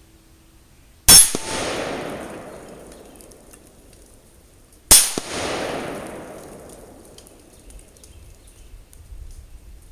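Two rifle shots about four seconds apart, each a sharp crack followed by a long echoing report that fades over a couple of seconds.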